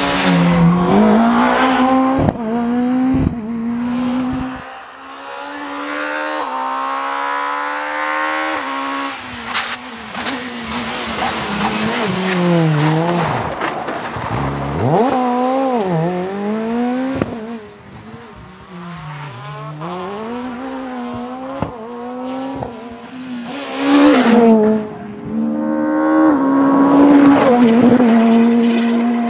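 Rally cars at full attack, engines revving hard. The engine note drops and climbs again and again through lifts, braking and gear changes as the cars pass close by, loudest about three-quarters of the way through.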